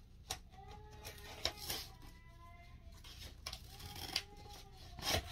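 Scissors cutting a paper packet: a few separate quiet snips and clicks.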